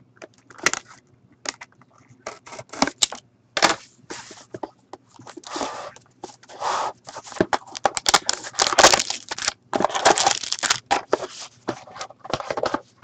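Foil pack of Panini Prime hockey cards crinkled and torn open, after a few clicks from the cardboard box being unsealed. The crackling is dense through the second half.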